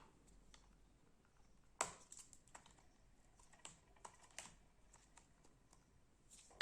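Faint, scattered small clicks and taps from handling the parts of an opened laptop, with one sharper click a little under two seconds in.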